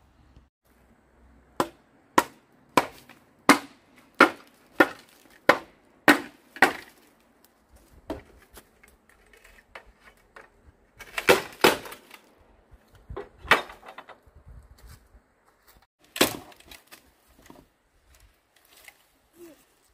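A series of sharp blows on wood: about nine evenly spaced strikes roughly two-thirds of a second apart, then after a pause a few scattered, irregular strikes.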